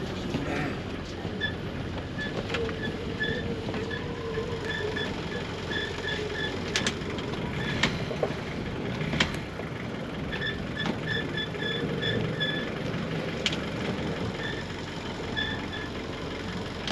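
A sailing yacht's engine running steadily as the boat motors out of its berth, with a high electronic beep repeating in runs and a few sharp clicks.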